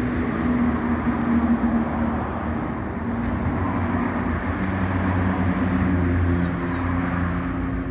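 Diesel engine of an EMD GT22CW-2 diesel-electric locomotive running with a steady low hum; its note shifts about halfway through.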